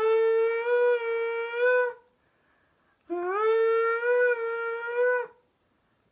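A person vocally imitating windshield wipers: a high hummed tone that slides up and then holds with about three swells, made twice with a pause of about a second between.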